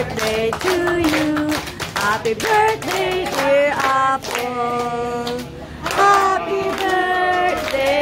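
A group of people singing together while clapping their hands in a steady rhythm.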